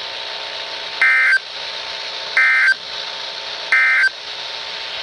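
Three short bursts of Emergency Alert System SAME data tones, a buzzy two-tone digital warble, about a second and a half apart: the end-of-message code that closes the alert broadcast. A steady hiss runs beneath.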